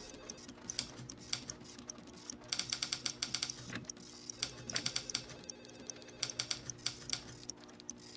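Film score: low sustained notes held under sparse ticking. Quick runs of clacking like typing come about two and a half, four and a half and six seconds in.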